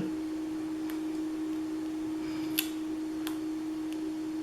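A steady low hum in the room, with three faint light ticks from paper letter stickers being lifted and pressed back onto the page.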